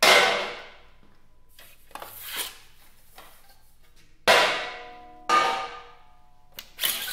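Metal parts of a scanning electron microscope's steel column and vacuum fittings clanking as they are handled and taken off. A loud clank rings out at the start, another comes about four seconds in and a third a second later, with lighter knocks between.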